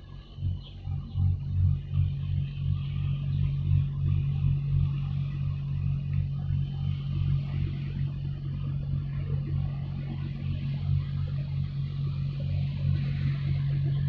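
Wind buffeting the microphone in uneven gusts over a steady low hum.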